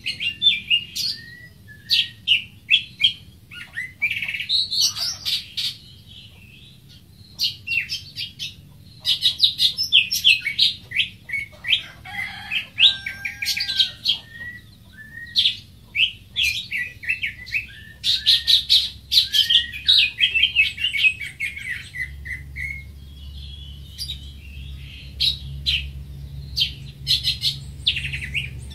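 Greater green leafbird singing: rapid runs of sharp, varied chirps and whistles, delivered in phrases broken by short pauses.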